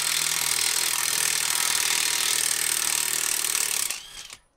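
Cordless impact wrench hammering continuously on a 21 mm socket, loosening a front brake caliper carrier bracket bolt; it stops near the end.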